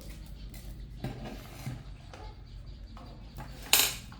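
Small metal objects clinking and knocking on a hard surface: a few light knocks, then one louder clatter near the end, as of tools or parts being handled during a repair.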